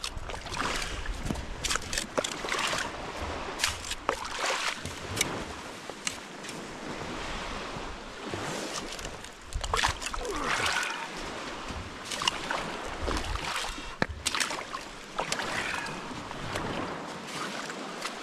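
A spade cutting and scraping into wet sand in a series of short sharp strokes, over a steady wash of small lake waves on the shore and wind on the microphone.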